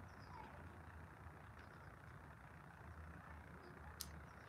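Near silence: a faint, steady low background rumble, with one short sharp click near the end.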